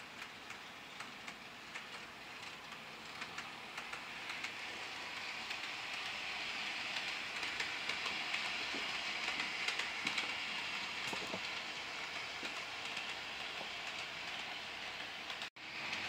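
HO scale model train running along its track: a steady whir of wheels and motor with light scattered clicks. It grows louder over the first several seconds as the train draws near and passes. The sound cuts out for an instant near the end.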